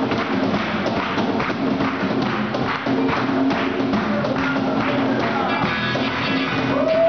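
Live band music: a steady percussion beat over sustained chords.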